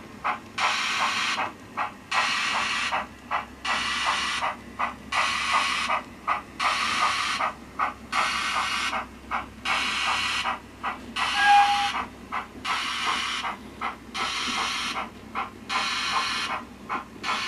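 DCC sound decoder in a model steam locomotive, heard through its small onboard speaker, playing a slow, steady beat of hissing exhaust chuffs as it works a loaded coal train. A brief higher tone sounds once about two-thirds of the way through.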